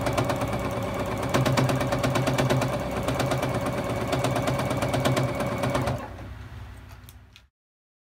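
Juki HZL-F600 domestic sewing machine stitching at speed during free motion quilting: a fast, even run of needle strokes over the motor's hum. It fades out about six seconds in and is silent by the end.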